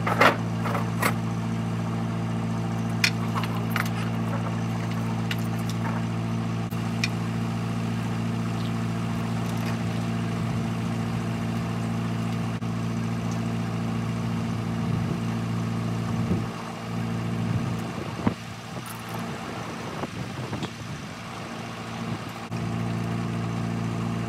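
Backhoe's diesel engine idling steadily, with a few sharp metallic clinks of rigging chain and metal in the first few seconds.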